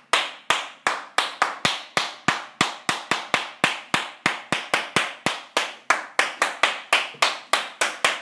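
One person clapping hands in a steady, even rhythm, about three claps a second.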